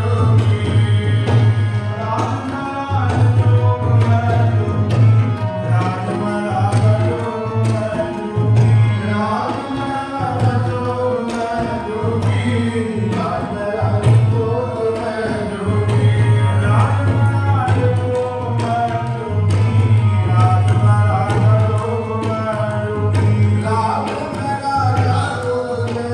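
Devotional hymn singing with tabla, in the style of Sikh kirtan: a sung melody over a steady tabla rhythm with a deep pulsing bass drum tone.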